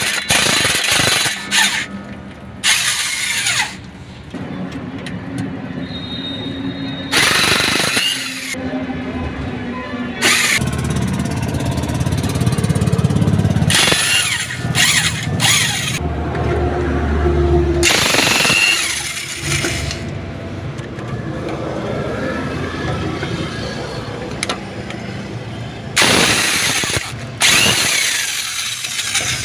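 Repeated short bursts of a pneumatic impact wrench, each lasting about a second, while a Mahindra Bolero's propeller shaft is taken off.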